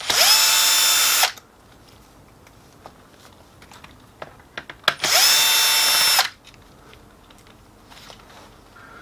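Bosch cordless drill/driver run twice in reverse, backing screws out of a copier drum unit's plastic front cover. Each run lasts just over a second, spinning up quickly to a steady whine, with a few light clicks in between.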